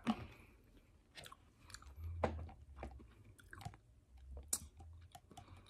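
A person chewing a piece of chili-coated candy straw close to the microphone, with small clicks and crunches. Low bumps follow as plastic cups are picked up and handled.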